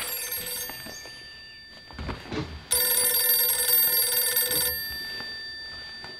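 Corded landline telephone's bell ringing in repeated rings about two seconds long: one ring ends just after the start and a full ring comes about halfway in, dying away slowly. A few soft low thumps come just before the second ring.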